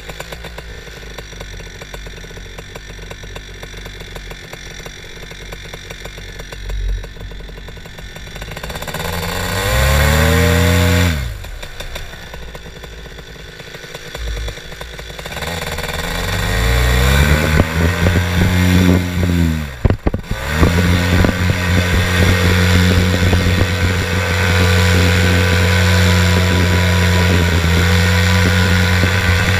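Small propeller aircraft engine ticking over, revved up and back down twice, then opened up and held at a steady high power for take-off.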